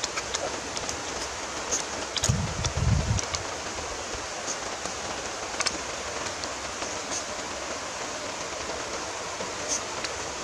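Shallow rocky river flowing, a steady wash of running water, with a few faint clicks and a brief low rumble about two to three seconds in.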